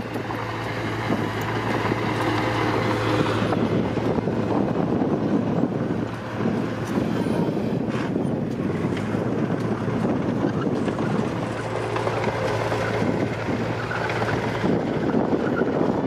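Steady diesel engine running from small earthmoving machines: a crawler dozer pushing soil, then a small tipper truck with its bed raised to dump its load. Wind noise on the microphone.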